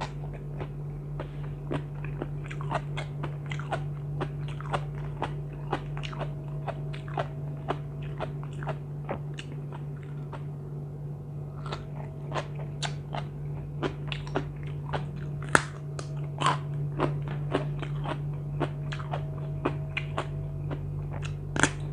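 A person chewing and crunching crisp raw vegetables, such as Thai eggplant, eaten with a spicy seafood papaya salad: many short, crisp crunches in quick succession. A steady low hum runs underneath.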